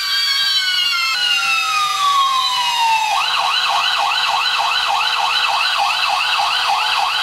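Electronic police siren sound effect from a battery-powered toy SWAT police truck pencil sharpener, set off by sharpening a pencil in it. It starts as a slow rising-and-falling wail, then about three seconds in switches to a fast yelp of about three sweeps a second, with a steady hum underneath.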